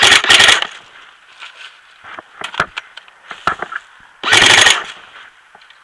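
Airsoft electric gun, an H&K MP5 replica, firing two short rapid bursts: one right at the start and another about four seconds later, with a few single snaps in between.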